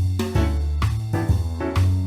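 Background music: an instrumental tune with a bass line and a steady beat.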